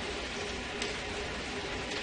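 Room tone: a steady low hiss, with one faint click a little before halfway.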